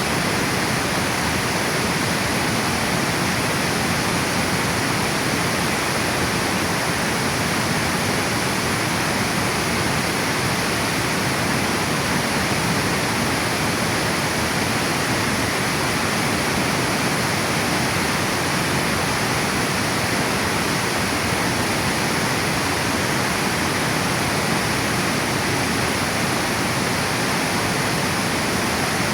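River water pouring over a dam weir: a steady, even rush of falling water.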